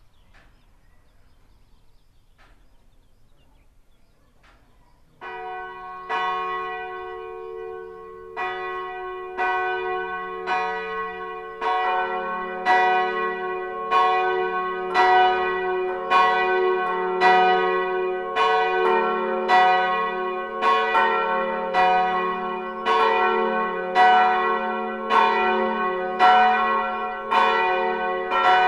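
Swinging church bells of a brick church tower starting to ring. After about five quiet seconds the first stroke sounds, then strokes come more and more often as the bells swing up, overlapping into a steady, ringing peal.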